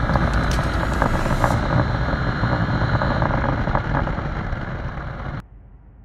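Yamaha XTZ Ténéré 250's single-cylinder engine running at road speed with wind rushing over the microphone, easing off slightly and then cutting off abruptly about five seconds in.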